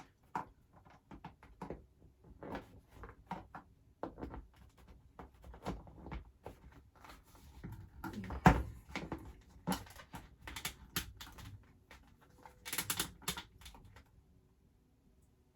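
Handling of a plastic action figure: scattered clicks, taps and rubbing as a cape is pushed into its slot on the figure's back, with one louder knock about eight seconds in.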